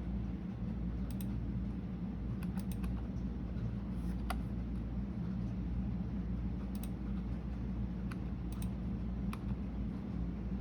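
Computer keyboard typing: scattered keystroke clicks, some single and some in quick clusters of two or three, over a steady low hum.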